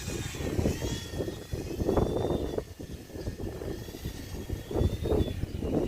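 Strong gusty wind buffeting the microphone, with the thin whine of a small C186 RC helicopter's motor wavering in pitch as it flies into the wind.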